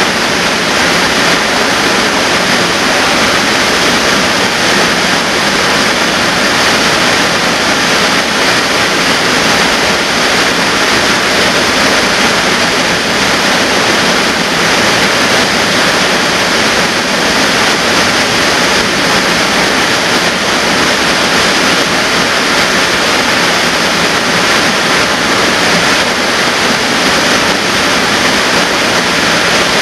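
Waterfall pouring into a rocky plunge pool, a steady loud rush of falling water.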